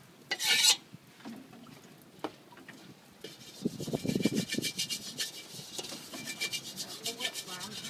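Wooden spatula scraping quickly around the inside of a dry steel wok, a rapid run of short rasping strokes that starts about three seconds in. A brief loud noise comes about half a second in.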